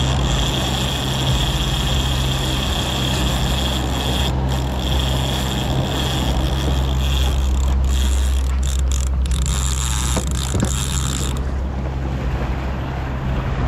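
Daiwa Saltist conventional trolling reel being cranked fast, giving a steady high gear whine with two short pauses, which stops about eleven seconds in as the rig reaches the boat. Underneath, the outboard motor drones steadily at trolling speed.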